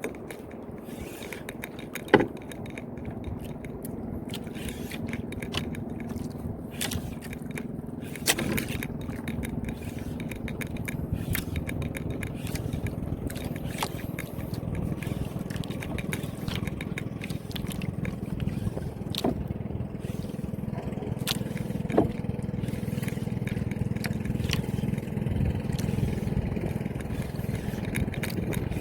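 A boat engine running steadily, slowly growing louder, with scattered sharp clicks and scraping over it. The loudest click comes about two seconds in.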